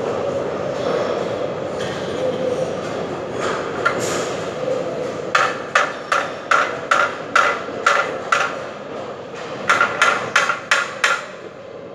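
Hammer blows during mounting of a wall-fixed fire alarm annunciator box. There is a run of about eight evenly spaced strikes, roughly two and a half a second, then a short pause and about six quicker strikes, over a steady background hum.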